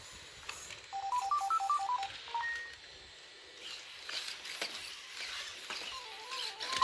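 Sony Aibo robot dogs beeping: about a second in, a quick little tune of short electronic tones stepping up and down, then a couple of single beeps. A few light clicks follow, and another beeping tune starts near the end.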